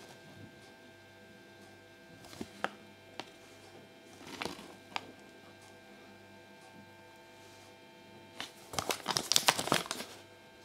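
Thin paper instruction leaflet from a Kinder Surprise egg being handled, crinkling in a few short rustles, then a longer, louder stretch of crinkling near the end as it is unfolded.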